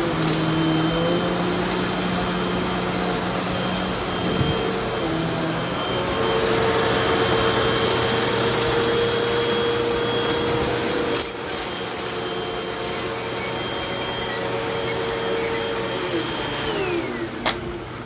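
Old Hoover upright vacuum cleaner running on carpet with a steady motor whine. Near the end it is switched off and the pitch falls as the motor winds down, followed by a click.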